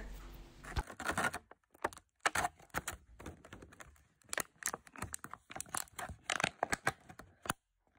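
Clear plastic blister tray crackling and clicking in irregular bursts as a small figure is pressed and pushed out of it.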